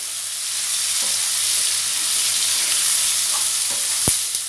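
Onions and freshly added tomato pieces sizzling in hot oil in a nonstick kadhai while being stirred with a wooden slotted spatula. A single sharp knock comes about four seconds in.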